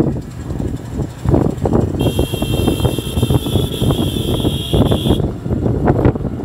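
Wind buffeting the microphone over the rumble of a moving vehicle on the road. About two seconds in, a steady high-pitched whine starts abruptly, holds for about three seconds and cuts off.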